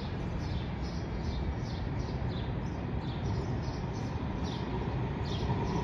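A small bird chirping over and over, two to three short falling chirps a second, above a steady low city-street rumble.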